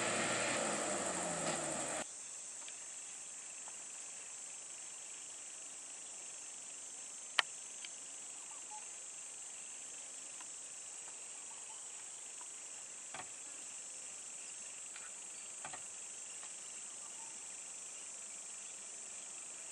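A vehicle engine idling for about two seconds, then it cuts off sharply and a steady, high-pitched drone of insects takes over, broken by one sharp click about seven seconds in and a few faint ticks.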